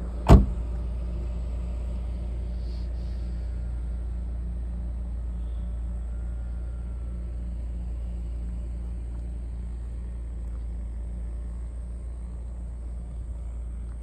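Car driving along a road: steady low rumble of engine and tyres, with one sharp loud thump about a third of a second in.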